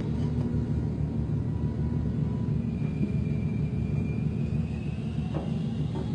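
Steady low rumble of ship's machinery, with a faint steady whine above it and a single knock about five seconds in.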